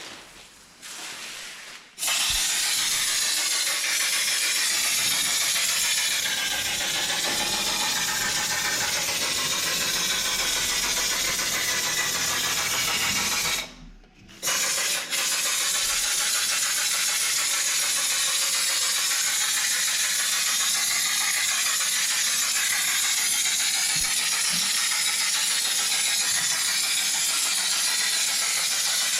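Air-driven Schutz undercoating gun spraying undercoating at about 25 PSI: a steady hiss of compressed air and spray that starts about two seconds in, stops briefly about halfway, then runs on.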